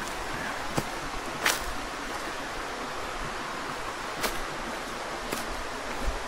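Steady rushing of a stream or waterfall, with a few light clicks scattered through it.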